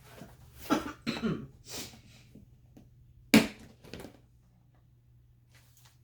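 A person coughing: short throaty voice sounds about a second in, then one sharp, loud cough a little past three seconds in.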